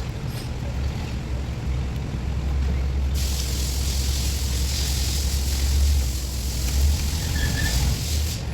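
A steady low hum, with a loud hiss that starts about three seconds in and cuts off sharply near the end.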